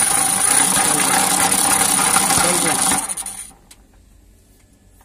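1990-vintage hand-cranked cast-iron grinder spun fast with a small metal piece held against its grinding wheel: a loud, steady grinding hiss with a steady whine from the wheel and gearing. It winds down and stops about three seconds in.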